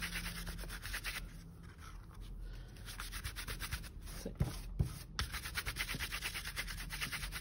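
A brush swept rapidly back and forth over embossed cardstock, clearing loose mica powder off heat-set gold stencil paste, a continuous run of quick bristle strokes.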